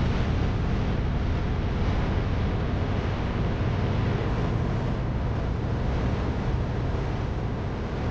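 Steady wind and low rumble aboard a large ship, without a clear pitch or any distinct events, heaviest in the low end.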